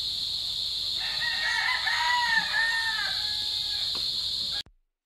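A rooster crowing: one long crow of about two and a half seconds, over a steady high-pitched drone. All sound cuts off suddenly near the end.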